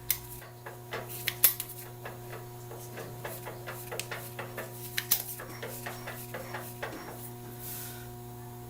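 Steady mechanical hum with several fixed tones, overlaid by irregular sharp clicks and light ticks, the loudest about one and a half seconds and five seconds in.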